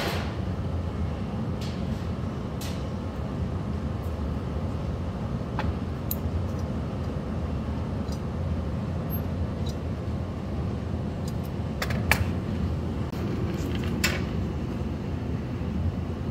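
Steady low roar of glassblowing hot-shop equipment, with a few sharp clicks of metal hand tools against the hot glass and bench. The loudest click comes about twelve seconds in.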